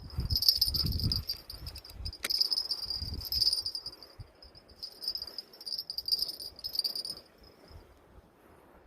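An insect chirps in a steady high-pitched pulsing trill, which stops about seven seconds in. Low thumps on the microphone come with it in the first few seconds.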